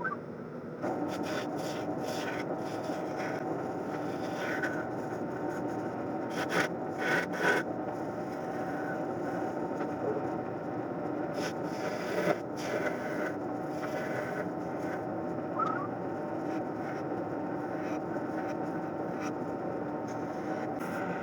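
Wood lathe running steadily while a turning tool scrapes against the spinning mahogany blank, with a few louder scrapes about six to seven seconds in and again near twelve seconds.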